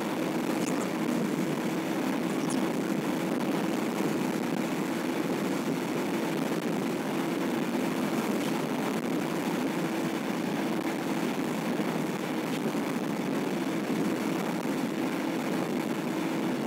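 Steady road and engine noise of a car cruising down the highway, heard from inside the cabin, with a faint constant hum under the rush.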